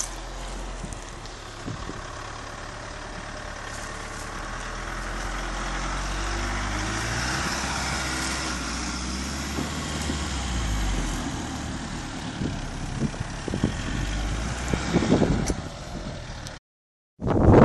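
Mitsubishi L200 pickup's engine running at low revs as the truck crawls past close by, getting louder as it approaches and then fading, with short crackling knocks from the tyres on the snowy gravel. The sound drops out briefly near the end and gives way to wind on the microphone.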